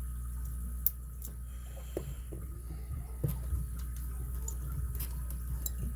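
Scattered small metallic clicks and ticks of a lock pick and tensioner working the pin stack of an ABUS 83CS/55 padlock, the sharpest click just under a second in, over a steady low hum.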